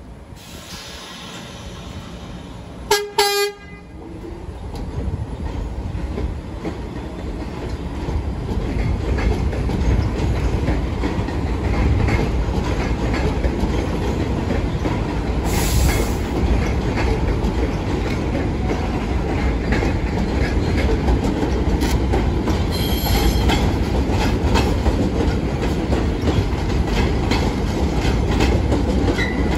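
A short blast of a subway train's horn about three seconds in, then an R46 subway train running along the elevated tracks. Its rail noise grows louder over the next several seconds and then holds steady.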